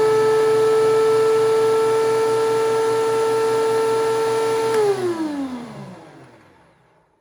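DeWalt DW735 thickness planer running empty on a test, a steady high motor whine. It is switched off about five seconds in, and the whine falls in pitch as the cutterhead spins down to silence.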